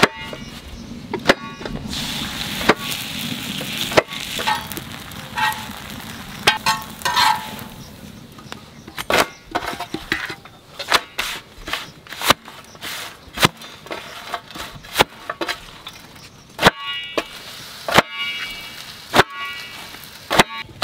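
Freshly cooked petai paratha beaten by hand on a steel plate to loosen its layers: a run of sharp slaps and knocks, about one a second in the second half, some ringing on the metal plate. A steady hiss runs under the first few seconds.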